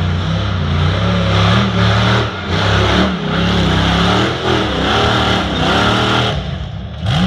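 Off-road tube-frame buggy's engine revving under load, its pitch rising and falling repeatedly as the throttle is worked, then easing off about six seconds in.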